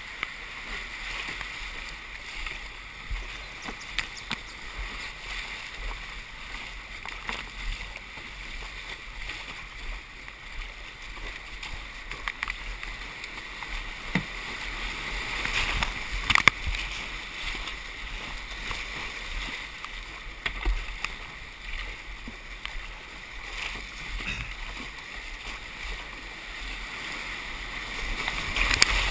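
Rushing whitewater around a slalom canoe running an artificial whitewater course, a steady noisy rush with scattered sharp splashes and knocks of water and paddle strokes. The sharpest knock comes about halfway through, and the water gets louder near the end.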